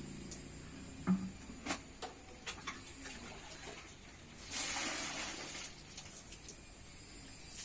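A small dog asleep and dreaming: a few soft clicks and ticks early on, then one long huff of breath about two-thirds of the way through.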